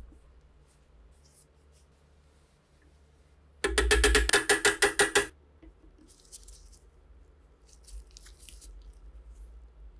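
Steel chisel being struck against a rusted fitting on an SVT-40 rifle barrel: a quick run of about a dozen ringing metal-on-metal strikes lasting about a second and a half, starting about four seconds in. Afterwards come quieter scraping and crunching as pliers work rust out of the corroded end of the barrel.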